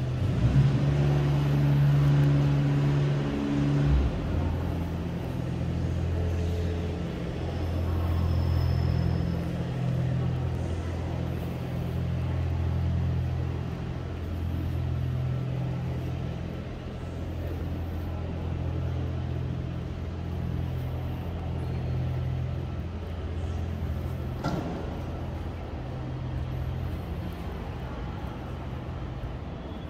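Low mechanical hum and rumble that swells and eases every second or two, with a single sharp click about twenty-four seconds in.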